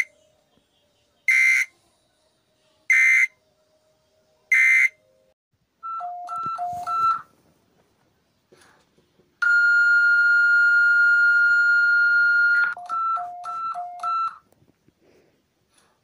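Emergency alert tones: three loud short beeps about a second and a half apart, then high-low alternating beeps, a single steady tone held about three seconds, and another run of high-low beeps.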